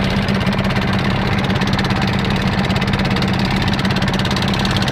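A motorboat's engine running steadily under way, an even low drone with a fast regular pulse.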